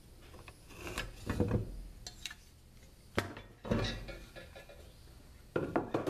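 Handling sounds of a metal speed square and wooden boards: a string of light knocks and metallic clinks as the square is moved and lifted off the board, with a quick cluster of clicks near the end.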